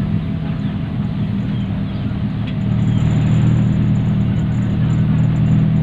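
Steady low rumble of a car driving, engine and road noise heard from inside the cabin, growing a little louder about three seconds in.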